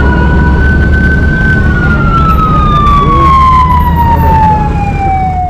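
Emergency-vehicle siren in a slow wail: the tone holds high for a moment, then falls steadily over a few seconds and starts to rise again at the end. A steady low rumble of traffic runs underneath.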